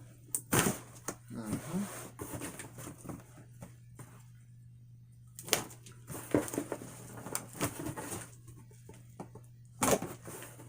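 A cardboard shipping box being cut and pulled open by hand: irregular scraping, crinkling and sharp knocks of cardboard and packing, over a steady low hum.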